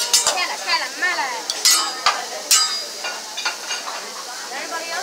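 Metal spatula scraping and clicking against a teppanyaki griddle, with a few sharp clacks, over the steady sizzle of food frying on the hot plate.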